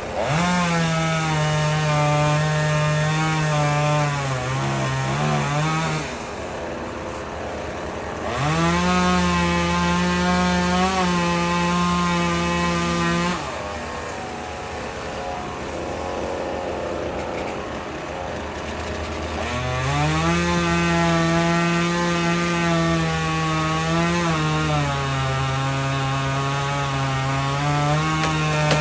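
Chainsaw running at high revs in three long stretches, revving up at the start, again about 8 s in and about 19 s in, and dropping back to a lower, quieter running in between. The pitch dips briefly now and then during the high-rev stretches.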